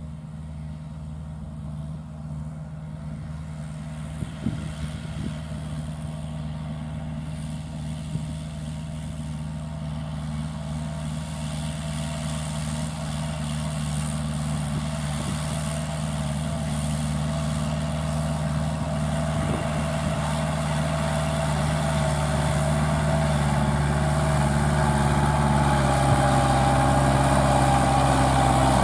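Kubota L5018VN tractor's 50 hp four-cylinder diesel engine running steadily under load as it drives a rotary tiller through dry stubble. It grows steadily louder as the tractor approaches.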